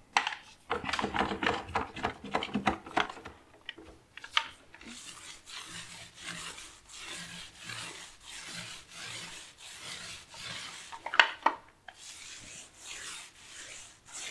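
Paint roller rolling primer onto a wall in repeated strokes, a rasping swish roughly once a second. At first there are a few knocks and some clatter, and about eleven seconds in there is a sharp click.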